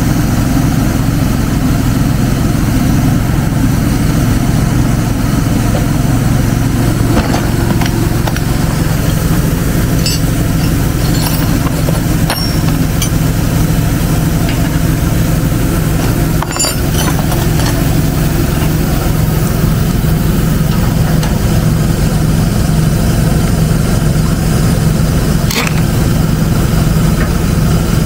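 Engine running steadily at idle, with a few short, sharp taps or clicks of tools over it.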